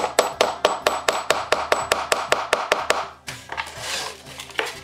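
Ball-peen hammer tapping a nail into an old wooden wagon tailgate board in quick, even blows, about six a second, stopping about three seconds in. After that the wooden tailgate is lifted and shifted, with a few light knocks.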